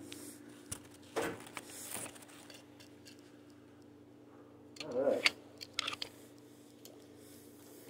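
Faint scattered clicks and brief rustles of things being handled, over a steady low hum, with a louder rustle about five seconds in.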